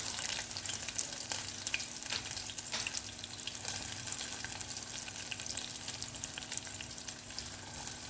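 Freshly added sliced onions frying in hot mustard oil with whole spices: a steady sizzling hiss full of small crackles.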